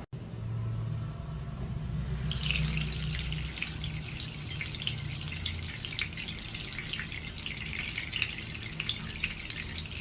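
Water running and splashing steadily, starting about two seconds in, over a low rumble.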